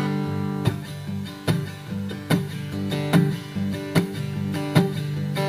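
Acoustic guitar strummed in a steady rhythm, a strong strum a little more than once a second, with the chords ringing between strokes.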